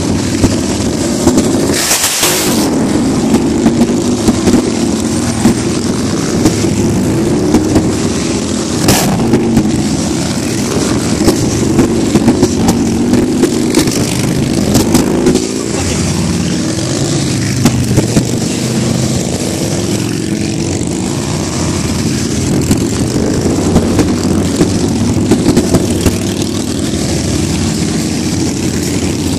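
A long column of big V-twin cruiser and touring motorcycles riding slowly past, many engines running and overlapping, loud throughout. A brief hiss about two seconds in.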